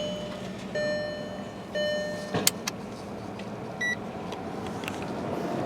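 Three electronic beeps about a second apart, followed by a few sharp clicks and a single short, higher beep.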